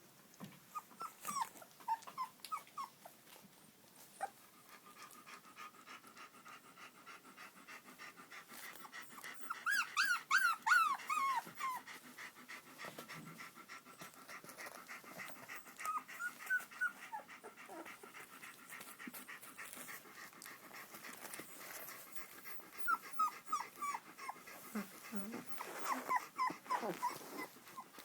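Shiloh Shepherd puppies whimpering in clusters of short, falling squeaks, loudest about ten seconds in, with quieter bouts scattered through.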